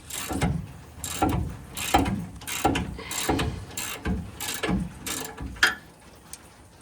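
Hand ratchet worked back and forth on a bolt, its pawl clicking in about nine even strokes, roughly one and a half a second, stopping shortly before the end. The hitch mounting bolts are being run snug, to be torqued properly later.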